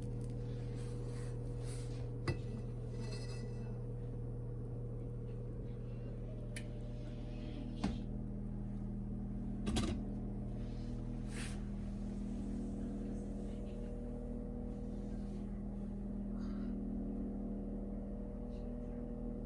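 A steady low electrical hum, like a running appliance or motor, with a few light clicks or knocks scattered through it.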